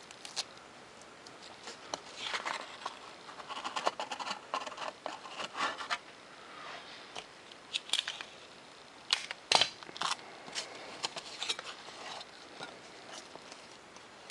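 Clear tape being pulled off a roll, torn and pressed down by hand onto a thin Depron foam sheet to tape on an elevon hinge: a run of crackling and small clicks, then a scatter of sharper clicks with the loudest snap just after halfway.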